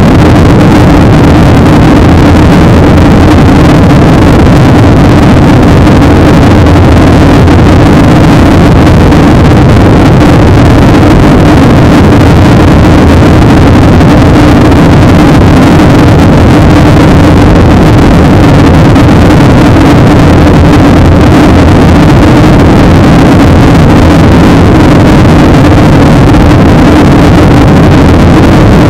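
Loud, steady cabin noise of a Boeing 737-800 in flight: the CFM56-7B jet engines' low hum blended with the rush of air over the fuselage.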